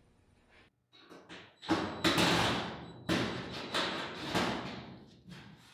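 Cordless drill working at a hand-formed metal body panel in about five short, loud bursts, each starting suddenly, beginning a second or so in.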